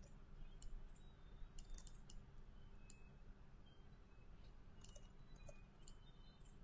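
Faint computer mouse and keyboard clicks at irregular intervals, over a low steady hum.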